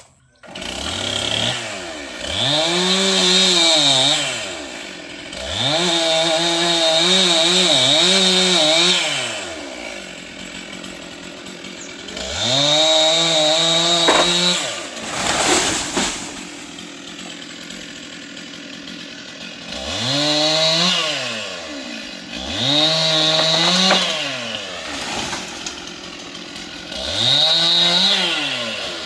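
Two-stroke Stihl chainsaw revved to full throttle in six bursts of one to three seconds, its pitch climbing to a steady top and dropping back to idle between bursts. There is a sharp knock about halfway through.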